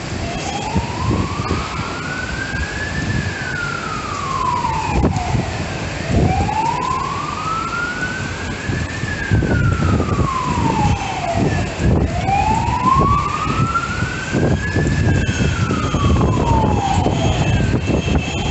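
Emergency vehicle siren sounding a slow wail, rising and falling about every six seconds, three times over. Under it is a steady wash of noise from the storm and the street.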